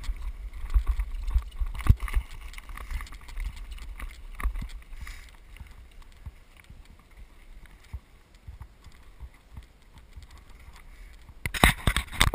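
Mountain bike riding on a gravel track: tyres crunching over loose stones, with scattered rattles and knocks, and wind buffeting the microphone. The rattling gets much louder and denser about eleven and a half seconds in.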